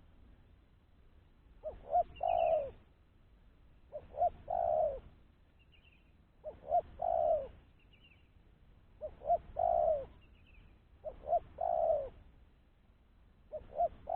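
Spotted dove (tekukur) cooing over and over, a phrase about every two and a half seconds: each phrase is two short notes followed by a longer falling coo. Faint high chirps come between the phrases.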